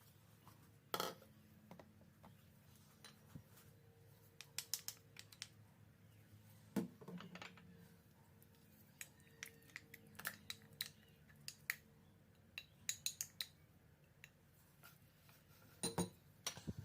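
Scattered clinks, taps and knocks of kitchen utensils and dishes being handled, with sharper knocks about a second in, near the middle and near the end, over a faint steady low hum.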